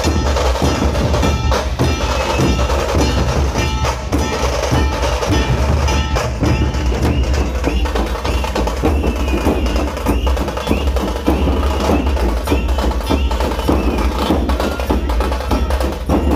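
Dhol-tasha ensemble drumming: many large barrel-shaped dhol drums beaten in a loud, dense, driving rhythm with the sharp crack of tasha drums over them.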